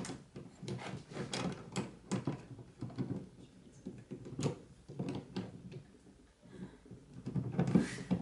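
Bolt cutters working at a metal padlock on a locker door: a run of irregular clicks, knocks and metal rattles as the jaws grip and shift on the shackle without cutting through it.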